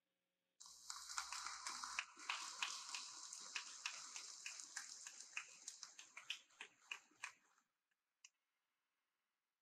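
Audience applauding in a gymnasium, dense clapping that starts suddenly and slowly thins out and dies away over about seven seconds.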